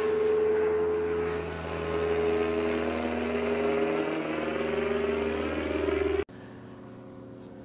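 Small propeller airplane flying overhead, its engine drone sinking slowly in pitch as it passes. The sound cuts off abruptly about six seconds in.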